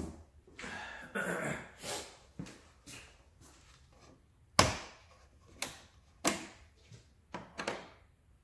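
A plastic motor-oil jug being handled and readied to pour, making rustling and scraping in the first couple of seconds. Then come a handful of sharp plastic clicks and knocks, the loudest about halfway in.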